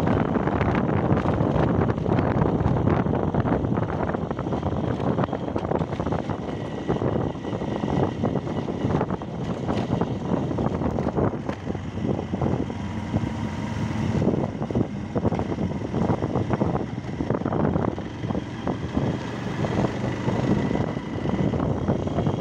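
Motorcycle running while being ridden along a road, with wind rushing over the microphone.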